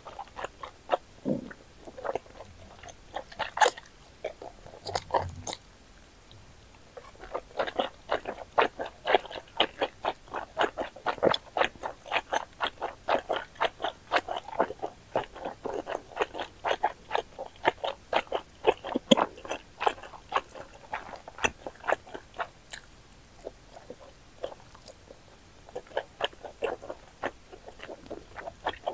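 Close-miked chewing of wide Chinese starch noodles in spicy Buldak sauce: a bite, then rapid mouth clicks, several a second. The chewing pauses briefly about a quarter of the way in and again near the end.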